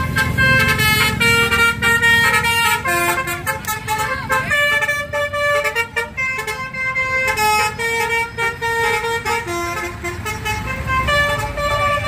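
Bus 'telolet' musical horn playing a melody: a string of stepped multi-tone horn notes, changing pitch every fraction of a second, over the low rumble of bus engines.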